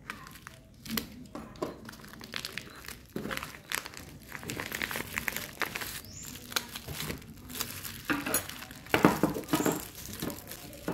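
Clear plastic packaging crinkling and crackling as hands cut open and handle a bag of wrapped spoons.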